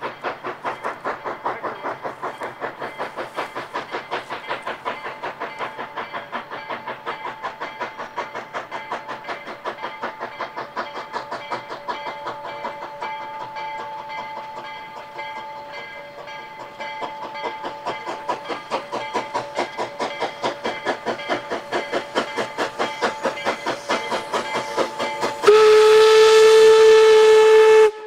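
Narrow-gauge K-27 class Mikado steam locomotive 463 working toward the listener, its exhaust chuffing in an even rhythm that eases briefly midway and then grows louder as it nears. Near the end its steam whistle sounds one long blast, the loudest sound.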